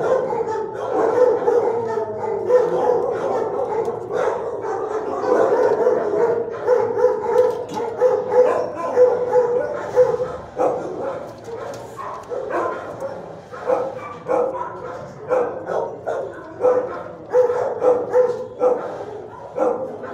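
Several dogs barking at once in shelter kennels, a continuous din. In the second half one dog's barks stand out at a steady pace, about three every two seconds.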